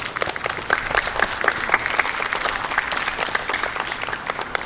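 A small group of people clapping, many separate claps a second. It starts suddenly and thins out near the end.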